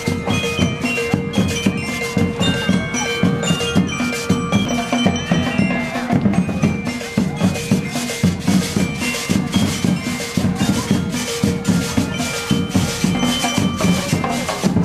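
Marching band playing in the street: snare and bass drums beat a steady march rhythm under a melody of high ringing notes.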